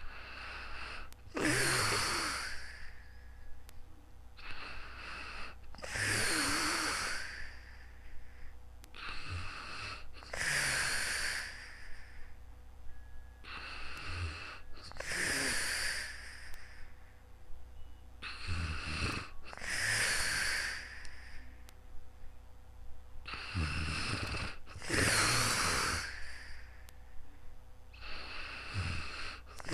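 A sleeping person snoring with slow, heavy, hissing breaths, about one every four and a half seconds. Each breath comes in two parts, the second longer and louder.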